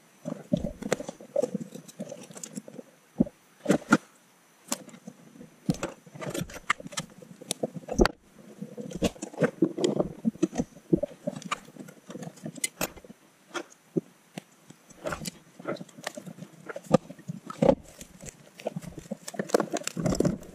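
Hands taking apart an Ender 5 3D printer's fan shroud and part-cooling fans from the hotend: scattered sharp clicks and taps with bursts of rustling as plastic parts, screws and wires are handled.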